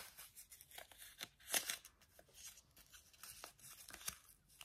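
A sheet of origami paper being folded and flattened by hand: faint crinkles and rustles with small crackles, a little louder about one and a half seconds in.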